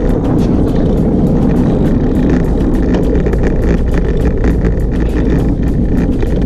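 Steady wind rumble on a handlebar-mounted camera's microphone as a road bike rolls along a road, mixed with tyre and road noise and scattered small clicks and rattles.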